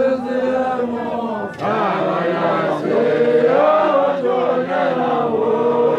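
A group of male voices chanting a song together in unison, holding long notes with a short break about one and a half seconds in.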